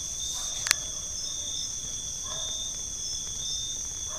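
Night-time crickets trilling steadily at a high pitch in two even bands. A single sharp click comes a little under a second in.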